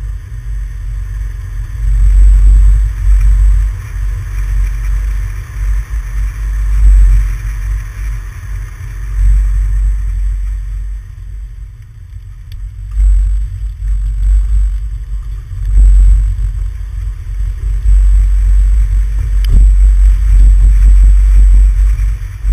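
Wind buffeting the microphone of a camera mounted on the outside of a moving vehicle, a heavy low rumble that swells and fades unevenly, with a few short knocks about halfway through and near the end.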